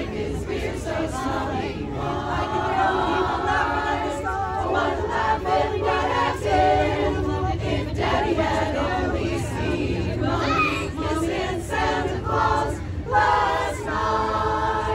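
A women's chorus singing a Christmas song together, unaccompanied, with a steady low hum underneath.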